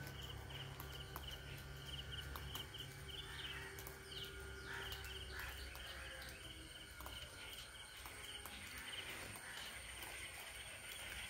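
Insects, cricket-like, chirping faintly in a steady rhythmic pulse, with a thin steady high tone behind them. A few short chirping calls come in about four to five seconds in.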